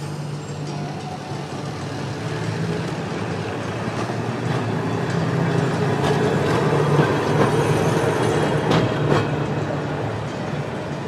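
Milan 1500-class "Ventotto" tram passing close by on street track. Its running noise swells to a peak about seven seconds in and then fades, with a few sharp clicks from the wheels on the rails in the second half.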